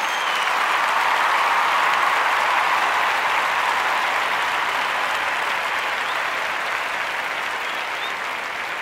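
A crowd applauding, a dense steady clapping that eases off slightly near the end.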